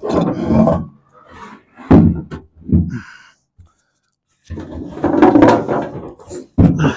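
Knocks, thunks and scraping as the sheet-metal fuel tank of a 1971 Chevy Vega is worked loose and handled, with a sharp knock about two seconds in, a longer rough scraping stretch in the second half, and another knock near the end.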